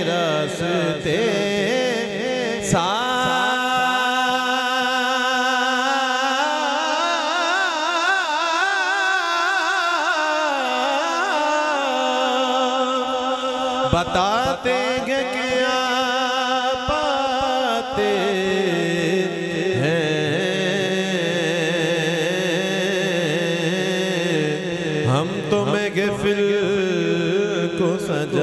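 Male naat reciter singing into a microphone through a PA system: long, drawn-out wavering notes with no clear words. A low steady drone comes in under the voice about two-thirds of the way through.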